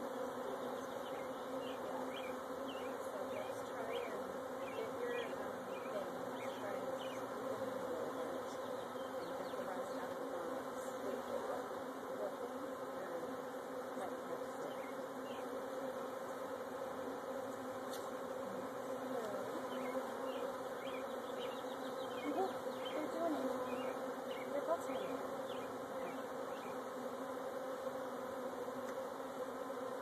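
A large swarm of honeybees buzzing in flight: a steady, dense hum, with single bees whining past the microphone every now and then.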